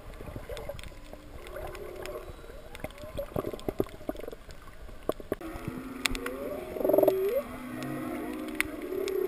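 Humpback whale song heard underwater: several overlapping moans and whoops that glide up and down in pitch, the loudest a pulsing call about seven seconds in, followed by a long held moan. Scattered sharp clicks of the reef crackle underneath.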